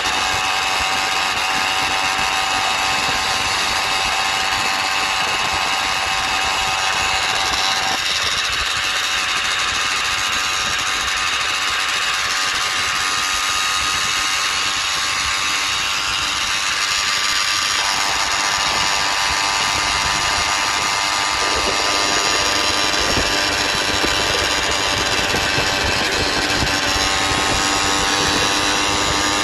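Motorized bicycle's small engine running steadily at cruising speed, its pitch holding level, over road and wind noise.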